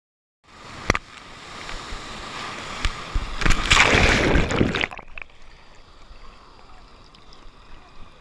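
Water rushing against the camera, with a sharp knock about a second in. It builds to a loud wash of breaking whitewater around the middle, then cuts down to quieter water lapping with small splashes.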